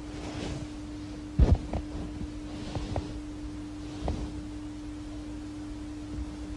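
A steady low hum with a few dull thumps, the loudest about one and a half seconds in, and a few faint clicks.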